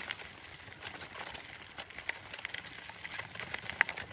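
Small wheels rolling over a gravel and dirt road, with an irregular run of crunching clicks and rattles. One sharper click comes just before the end.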